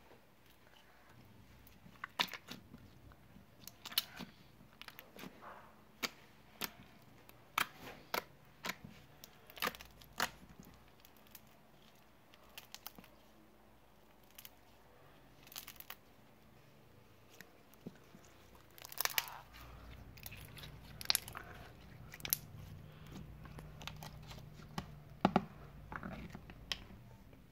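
Slime being squeezed and stretched by hand, giving irregular sharp clicks, pops and crackles.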